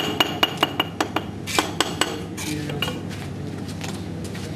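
A quick run of sharp clinking taps, about five a second with a short ring to each, as hard tools or objects knock together during brick-and-clay masonry work. The taps thin out to a few after about a second and stop by about three seconds in.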